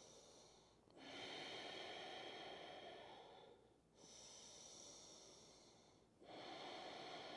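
A person breathing slowly and faintly through the nose, as in yoga breathing. There are three long breaths of two to three seconds each, with short pauses between them.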